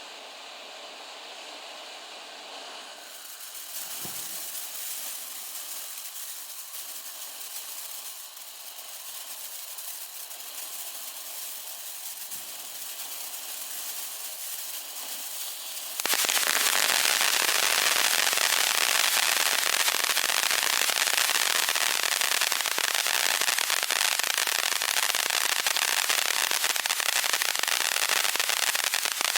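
Golden Ticket consumer firework fountain spraying with a steady hiss. About halfway through it jumps suddenly into a much louder, dense crackling spray as a new effect stage kicks in.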